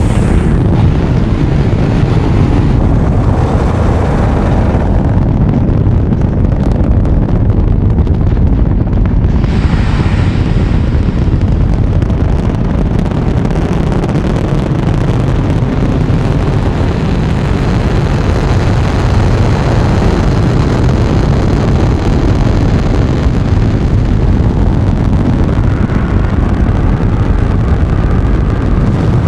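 Saturn V first stage's five F-1 rocket engines running at full thrust: a loud, steady, deep rumble with a harsher hiss rising over it at the start, about three to five seconds in, and again about ten seconds in.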